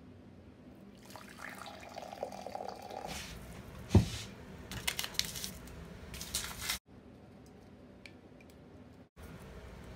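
Water being handled in a ceramic mug for tea: liquid pouring and sloshing, with a sharp knock about four seconds in and a run of light clinks after it. The sound cuts out abruptly twice near the end.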